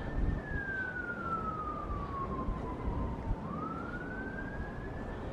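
Emergency vehicle siren wailing: one tone that slowly falls over about three seconds and then rises again, over a steady low rumble.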